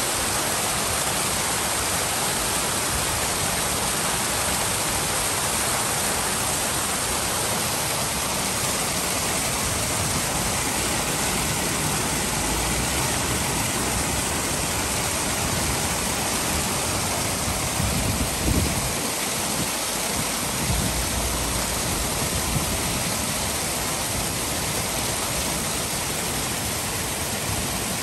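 Water falling in a curtain from a fountain's bowl and splashing into the pool below: a steady rushing splash, with a few brief low bumps about two-thirds of the way through.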